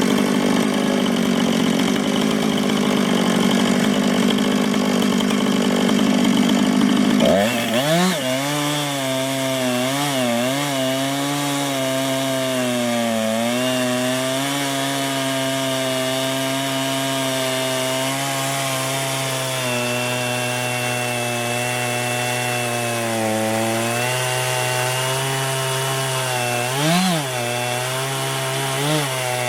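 Chainsaw in a chainsaw mill running at full throttle, ripping a cedar log lengthwise. About seven seconds in, its note changes sharply to a steadier engine pitch that wavers and dips as the cut loads the saw.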